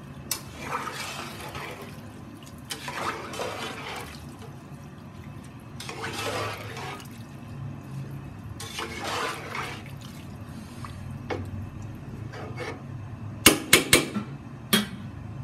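Water and rice sloshing in a metal cooking pot as a spoon stirs them, in several swishes of about a second each. Near the end the spoon clinks sharply against the pot a few times.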